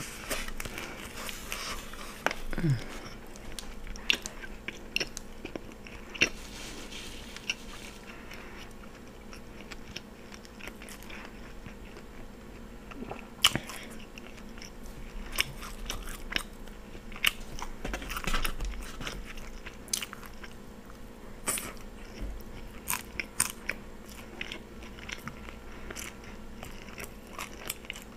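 Close-miked chewing of a mouthful of steak and cheese sub on a soft sub roll, with many short, sharp wet mouth clicks scattered throughout.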